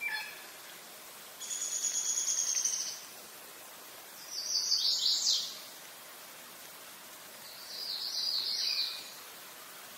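Songbirds singing: a high, dry trill about a second and a half long, then two shorter high phrases a few seconds apart, over a steady outdoor hiss.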